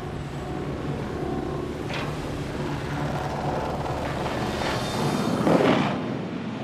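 Documentary soundtrack: a steady machinery rumble under background music, then a loud rushing blast about five and a half seconds in as an underwater explosion throws up a plume of seawater.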